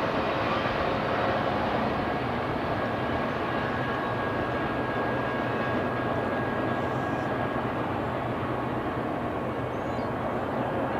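Steady, even noise of a distant vehicle, with no distinct events.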